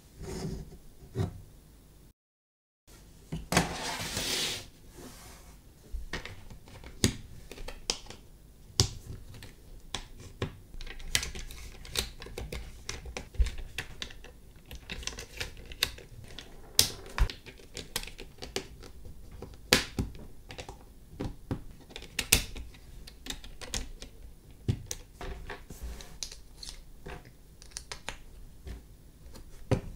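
Plastic LEGO parts being handled and pressed together on a baseplate: irregular sharp clicks and taps. There is a brief rustle a few seconds in.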